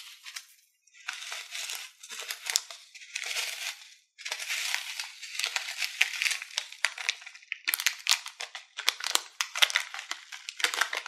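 Tiny foam beads pouring and pattering out of a crinkling plastic piping bag into a glass bowl, in several shaken bouts of dense, crackly rattling with short pauses between them.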